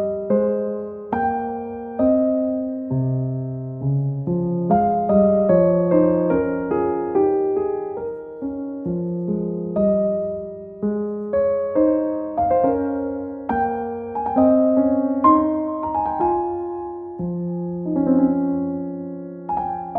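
Gentle solo piano music: single notes and chords struck one after another, each dying away.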